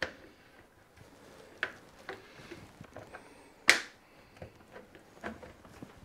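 Light, scattered clicks and knocks of hands working the washing machine's door seal and its spring clamp band into place, with one sharp click a little past halfway.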